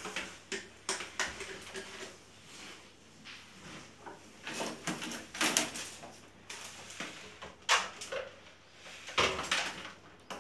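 Scattered clicks, knocks and rustles of hands working inside a plastic RO water purifier, handling its filter housings and tubing, with a few louder bangs around the middle and near the end.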